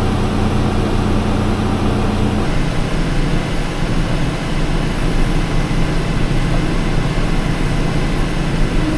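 Farm tractor engine running steadily, pulling a big round baler through the hay, with a loud, even machine drone; the low hum in its tone changes about two and a half seconds in.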